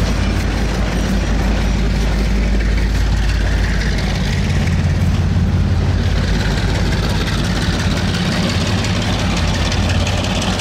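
Diesel-hauled passenger train moving slowly past: a steady low diesel engine drone over the running noise of the coaches on the rails. The low drone shifts slightly in pitch about halfway through.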